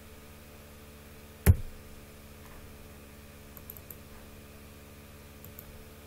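One sharp click from the computer being operated, about one and a half seconds in, then a few faint light ticks later on, over a steady low electrical hum.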